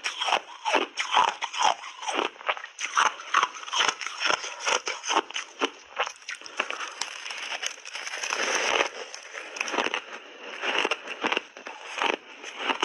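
A person biting and chewing refrozen block ice, heard close up as rapid, irregular crunches, with a denser run of grinding crunches about two-thirds of the way through.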